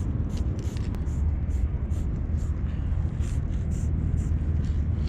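Aerosol spray-paint can hissing in a series of short bursts, roughly two a second, with a brief pause in the middle, over a steady low rumble.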